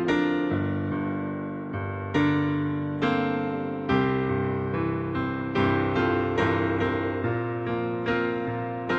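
Piano playing a slow, gentle piece: chords and single notes struck every second or so, each ringing on and fading before the next.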